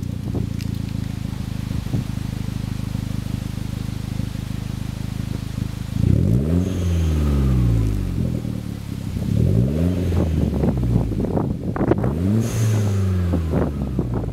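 Hyundai Genesis Coupe's TurboXS cat-back exhaust idling steadily, then revved three times, about six, nine and a half and twelve seconds in, each rev rising and falling back to idle. Wind on the microphone.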